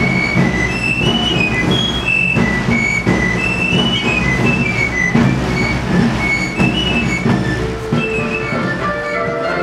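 Provençal folk-dance music played on galoubet and tambourin: a high, quick three-hole pipe melody over a steady, regular drum beat. Near the end it gives way to a different tune with longer held notes.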